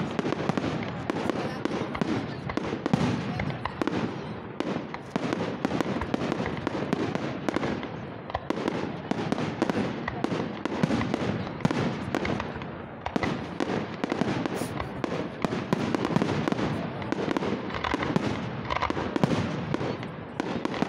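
Fireworks display: aerial shells bursting in a rapid, continuous barrage, the bangs overlapping with no pause between them.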